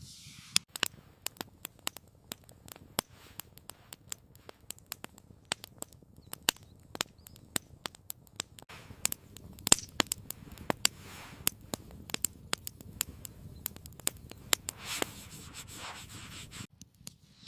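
Wood campfire crackling, with many irregular sharp pops and snaps over a low steady rumble.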